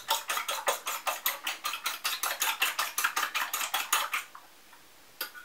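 A metal fork beating eggs in a china bowl: quick, even clicks of the fork against the bowl, about six or seven a second. The beating stops about four seconds in, and two light taps follow near the end.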